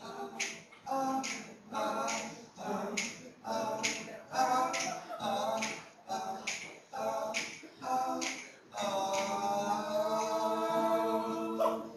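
Male voices singing unaccompanied in short rhythmic phrases, with a sharp snap on each beat about every 0.8 seconds. About nine seconds in, the singing settles into one long held note.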